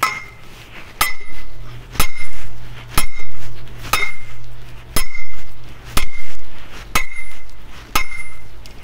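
Sledgehammer striking a metal barbell-rack upright in steady blows, about one a second, nine in all. Each blow rings briefly with a high metallic note as the post is driven into the ground.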